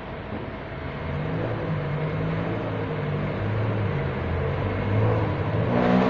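Commercial laundry machines running: a steady mechanical hum with low motor tones that shift in pitch, growing louder after about a second.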